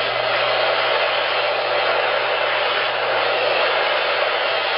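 Steady, loud whooshing of an electric fan running close by, with a low hum under it.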